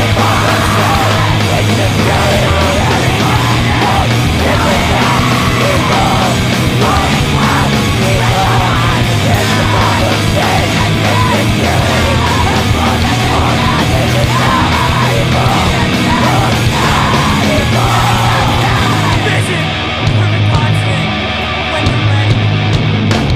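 Heavy, distorted rock band recording: dense guitars, bass and drums with screamed vocals over them. About 20 seconds in the sound briefly thins and dips before the full band comes back.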